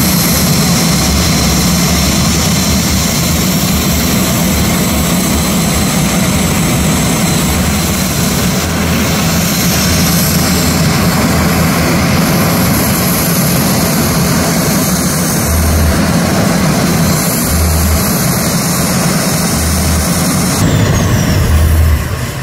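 Several Embraer A-29 Super Tucanos' Pratt & Whitney Canada PT6A turboprop engines running on the ground: a loud, steady propeller drone with a thin, high turbine whine over it. The level drops a little just before the end.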